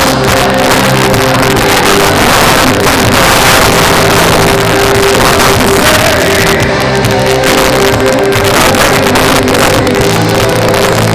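Live band playing loud music through a concert PA, with bass, guitar and drums and a singer on the microphone.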